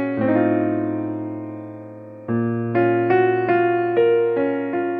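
Background piano music: a chord struck and left to fade, then a new chord about two seconds in with a gently stepping melody of short notes.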